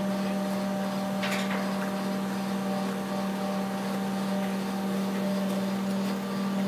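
Crane lifting a boat in slings, its engine and hydraulics running with a steady hum. A brief hiss comes about a second in.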